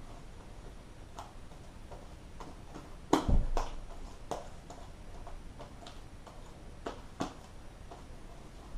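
Irregular light clicks and taps, with a louder cluster of knocks about three seconds in.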